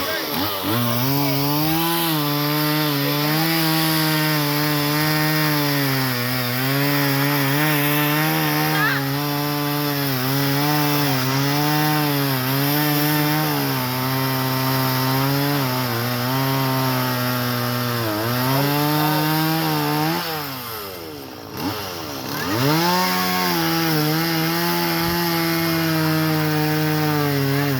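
Chainsaw running at high revs while cutting into a tree, its pitch sagging and recovering as the chain bites the wood. About twenty seconds in the engine drops off to a low speed for a moment, then revs back up and carries on cutting.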